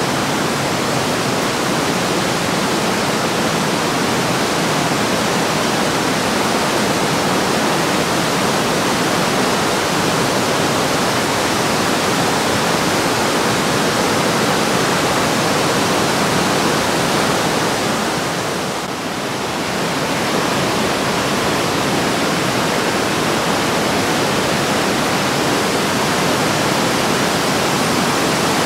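Whitewater of the Breitach river rushing over boulders at the bottom of the gorge: a loud, steady rush that dips briefly about two-thirds of the way through.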